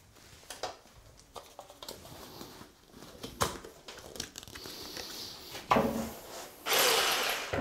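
Handling noises: rustling and small clicks as safety glasses and ear defenders are put on and a jigsaw is picked up and turned over, with a sharp knock a little before the end and a loud burst of rustling near the end. The jigsaw is not yet running.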